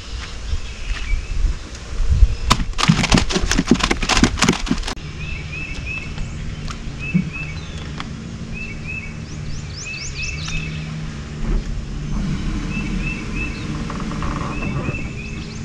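A couple of seconds of dense rattling clatter, the loudest part, about two and a half seconds in. After it, birds call in short chirps repeated in twos and threes, with a few quick falling whistles, over a low steady hum.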